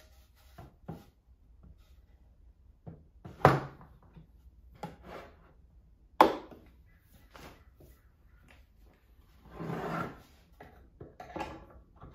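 Handling noise of a wooden 2x4 being positioned in a pocket-hole jig on a workbench: scattered knocks of wood against the jig and bench top, two sharp ones about 3.5 and 6 seconds in. Near the end comes a short scraping rub as the board slides into place.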